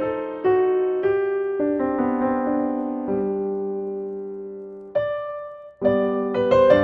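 Background piano music: a slow melody of struck notes that ring and fade, with one chord held and dying away, a short break about five seconds in, then the playing resumes.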